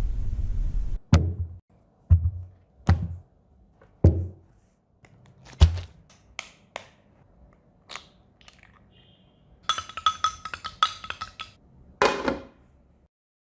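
Kitchen preparation sounds: a steady hiss that cuts off about a second in, then several separate thuds and lighter taps on a work surface. About ten seconds in there is a quick patter of small clicks lasting about two seconds, then one last thud.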